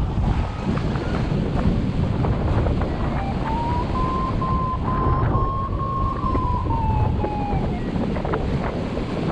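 Airflow rushing over the camera microphone in paraglider flight, a steady buffeting. A thin tone slides up about three seconds in, holds, and sinks away again near the end.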